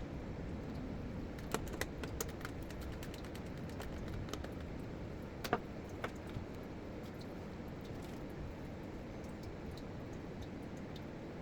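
Light, scattered clicks and taps of small plastic parts of a NutriBullet 1200 blender being handled during reassembly, a few close together about a second and a half in and a sharper one near the middle, over a steady low hiss.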